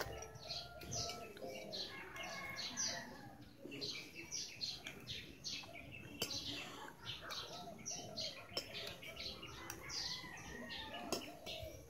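Many small birds chirping busily and continuously, their short calls overlapping, with a few lower cooing calls underneath.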